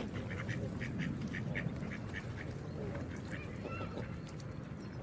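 Geese calling: a quick run of short honks, several a second, then a few rising-and-falling calls, over the steady rush of water.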